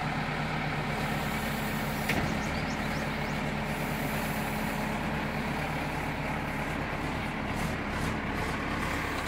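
JCB 3DX backhoe loader's diesel engine running steadily while the backhoe arm and bucket are worked, with one short sharp click about two seconds in.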